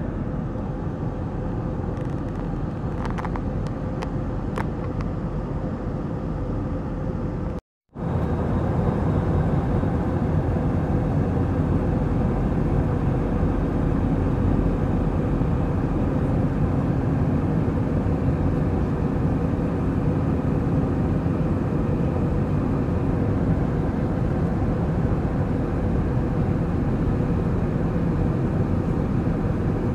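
Steady cabin noise of a jet airliner in cruise: airflow and engines heard from a window seat as a constant noise with a low hum. It cuts out briefly about eight seconds in and comes back a little louder.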